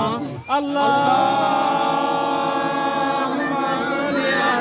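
Men's voices chanting together in unison, drawn out on long held notes, with a new phrase starting near the end.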